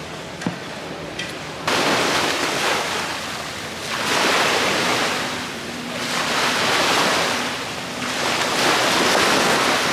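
Sea waves washing onto a beach, the surf swelling and fading about every two to three seconds; it comes in suddenly about two seconds in after a quieter stretch.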